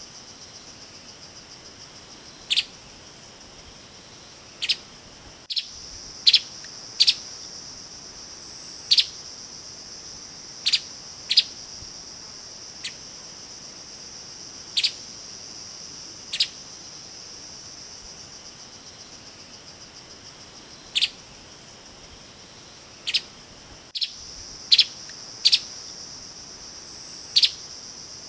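Streaked spiderhunter giving short, sharp single call notes at irregular intervals, roughly every one to two seconds with some longer gaps. Behind them runs a steady high insect drone.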